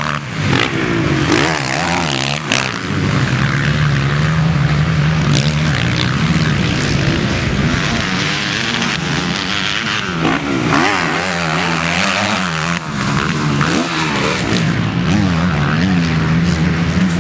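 Motocross bike engines running at race speed around a dirt track, their pitch rising and falling over and over as the riders open and close the throttle and shift gears. A few sharp clicks break in here and there.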